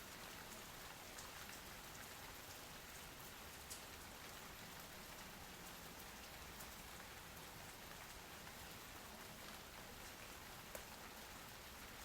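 Steady rain falling on a surface, an even hiss with scattered drops, two of them sharper, about four and eleven seconds in.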